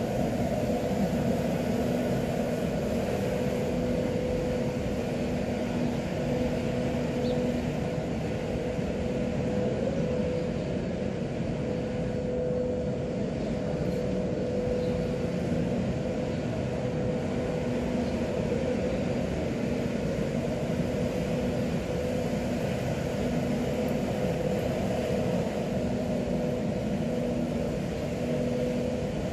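A steady mechanical drone: an even rushing noise with a constant low hum that does not change.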